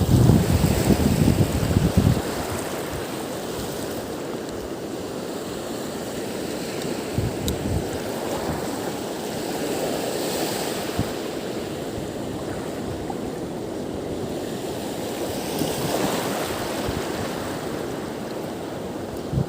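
Wind and waves at a river mouth: strong wind buffeting the microphone for the first two seconds, then a steady rush of wind and water with a few faint ticks.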